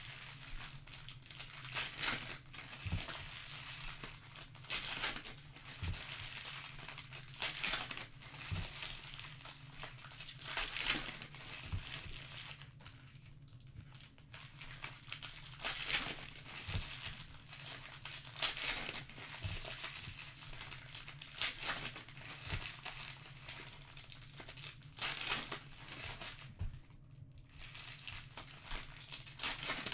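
Foil trading-card pack wrappers crinkling and tearing as Panini Prizm Breakaway packs are ripped open by hand, in repeated rustling strokes. Occasional soft knocks come from cards and packs handled on the table.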